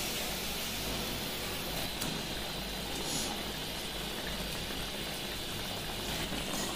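Spiced curry gravy simmering in an aluminium pot, a steady bubbling hiss, as fried green-banana koftas are set into it by hand, with a few faint clicks.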